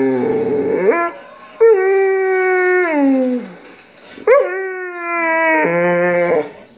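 A pit bull 'singing': three long howls that glide up and down in pitch, with short pauses between them; the middle howl slides downward as it fades.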